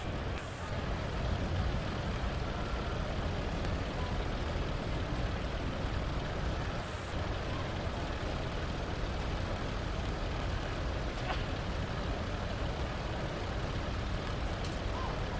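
Steady low rumble of heavy pulling-tractor engines idling, with no revving and no distinct start-up.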